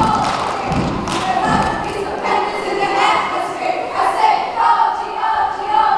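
Cheerleading routine: heavy thumps in the first second or two, and a group of voices singing held notes over them through the rest.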